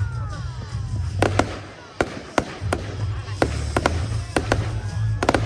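Fireworks going off: a string of sharp bangs at uneven intervals, with a quick burst of several together near the end, over a steady low rumble.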